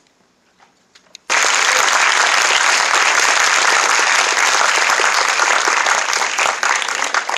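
Large audience applauding, starting suddenly about a second in and running loud and steady, thinning into scattered claps near the end.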